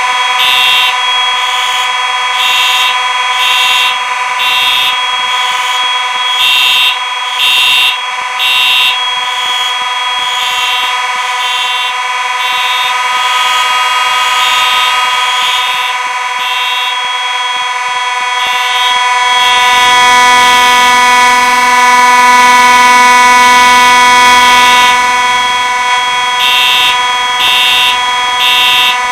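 Several fire alarm horns sounding at once, mixed Simplex units. A steady buzzing tone runs throughout while other horns pulse on and off out of step with it. About two-thirds of the way through the alarm gets louder and a lower drone joins in.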